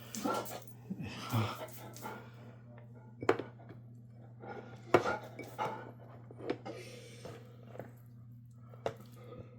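An excited dog whining while waiting for its food, with a few sharp clinks of utensils against a dish, fish skin being scraped into its bowl.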